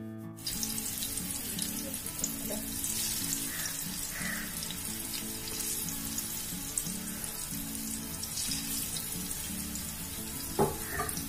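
Masala-coated fish pieces sizzling as they fry in hot coconut oil and Dalda, a dense steady hiss that comes in suddenly just after the start, with a short clack near the end.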